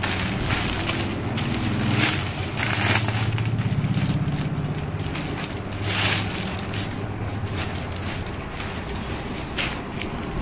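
Plastic wrapping and a dola crepe silk saree rustling and crinkling as the saree is pulled out and unfolded, with a few sharper crackles. A low steady hum sits underneath for the first few seconds.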